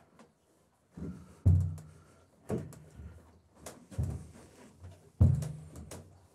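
A two-year-old Hanoverian colt's hooves shifting and stamping on a horse trailer's floor: a series of about six hollow thuds, each with a short low ring, the loudest about five seconds in, with a few sharper clicks between them.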